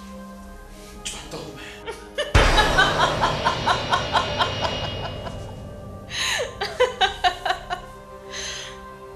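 A person laughing hard in quick bursts, starting suddenly about two seconds in, easing off, then breaking into a second run of laughs a few seconds later, over soft background music with held tones.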